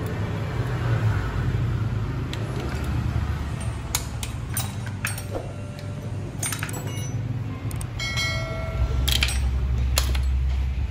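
Metal hand tools clicking and clinking against motorcycle brake parts, a handful of sharp knocks, with a brief metallic ring near the end, over a steady low hum.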